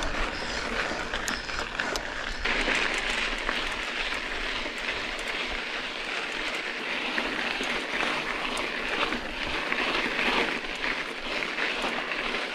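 Mountain bike tyres rolling and crunching over loose volcanic gravel, with fine crackling and rattling; the noise turns brighter and denser about two and a half seconds in.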